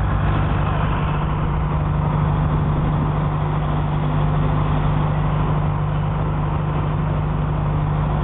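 An engine idling with a steady, unchanging low hum.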